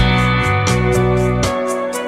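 Background music: a guitar-led track with held chords and a steady beat of about two strikes a second.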